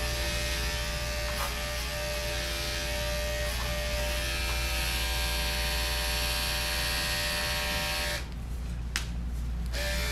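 Andis electric pet clipper with a snap-on guard comb running steadily, trimming a dog's fur. The motor note dips and dulls for about a second and a half near the end, with a single click.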